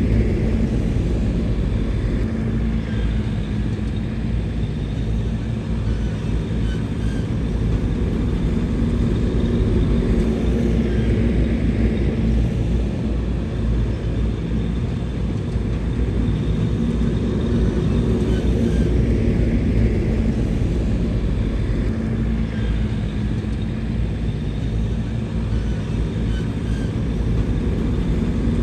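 Heavy diesel engine of a bulldozer running steadily, with its level swelling and easing a little every several seconds as it works.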